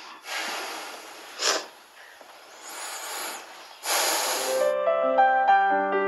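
A man's heavy breathing through the nose: three long, noisy breaths with a short, sharp sniff between them. Gentle piano music begins about three-quarters of the way in.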